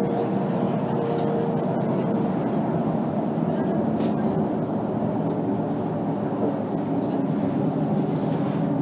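Interior sound of a Mercedes-Benz Citaro C2 articulated bus under way, heard from inside the passenger cabin: a steady drone of engine and driving noise, with no marked rise or fall.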